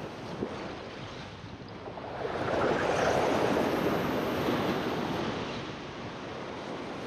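Ocean swell washing over a rock ledge: a rush of surging whitewater that builds about two seconds in, peaks, and slowly drains away.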